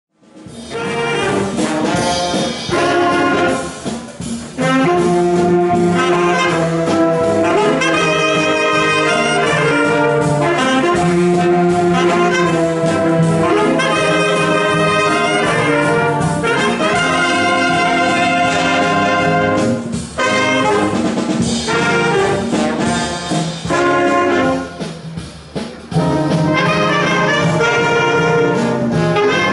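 Concert wind band playing: flutes, clarinets, saxophones and brass in sustained chords, with a few brief breaks between phrases. The music starts abruptly right at the beginning.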